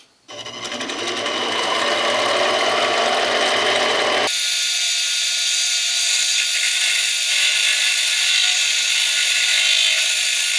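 Central Machinery 7x10 mini lathe's spindle starting up and running as it turns a steel bar, the sound building over a second or so. About four seconds in it jumps abruptly to a higher, hissier sound of the lathe cutting, sped up six times.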